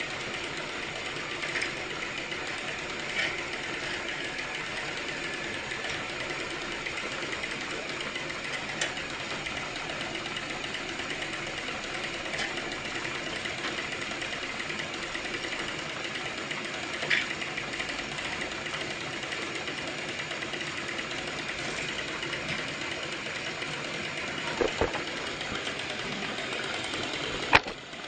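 Small electric motor of a battery-powered toy train whirring steadily as it runs along the track, with a few sharp clicks, two of them louder near the end.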